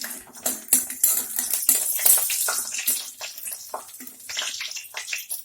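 Pea-lentil dumplings (bori) frying in hot mustard oil in a kadai: a steady loud sizzle, with frequent short clinks of a spoon or spatula against the pan.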